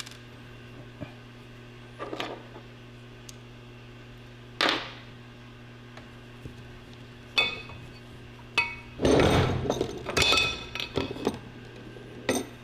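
Metal engine parts knocking and clinking as they are handled on a bench during a teardown. There are single knocks about two and four and a half seconds in, then a busier run of ringing clinks, loudest about nine to eleven seconds in, over a steady low hum.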